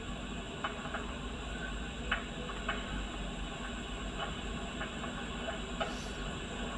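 Scattered light clicks and knocks of a solar panel's frame and its screwed-on corner brackets being handled, over a steady background noise.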